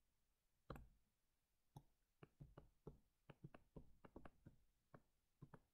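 Faint, irregular clicks and taps of a stylus tip on a tablet screen during handwriting, about twenty in a few seconds.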